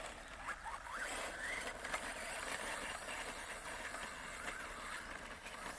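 Electric motor of an ECX Torment RC truck, a 4000kv brushless, whining faintly as the truck drives over loose sand. The pitch rises and falls with the throttle.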